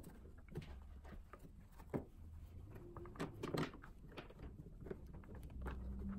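Handling noises from packing a hard plastic equipment case with foam inserts and a charger cable: scattered light knocks and clicks with soft rustling, a cluster of them about three and a half seconds in.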